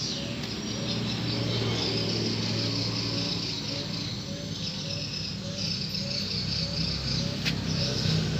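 Background music with a short note repeating about twice a second over sustained low chords, with high insect-like chirping on top.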